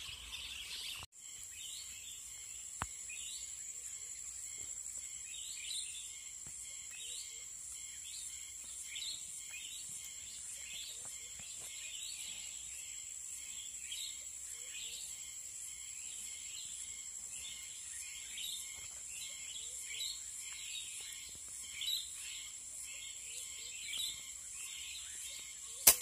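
Many short, high bird chirps, repeated irregularly, over a steady high-pitched insect drone. There is a sudden dropout about a second in and a brief click a little later.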